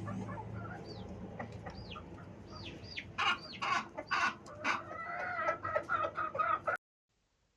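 Hens clucking, with high peeping calls in the first half and louder, rapid clucks from about three seconds in, over a low steady hum. The sound cuts off suddenly near the end.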